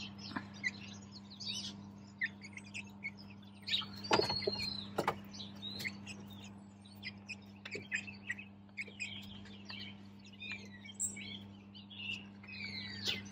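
Young hens cheeping and chirping in short scattered calls, some falling in pitch, with two knocks about four and five seconds in and a faint low steady hum underneath.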